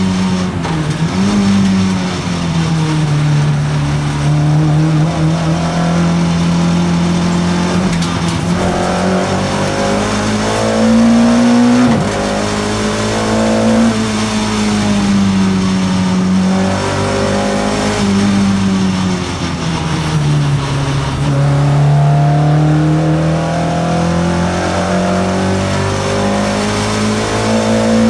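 Race car engine heard from inside the cockpit, held at high revs with its pitch rising and falling through the bends. About twelve seconds in the revs climb, then drop suddenly, and they sag for a couple of seconds around twenty seconds in before climbing again.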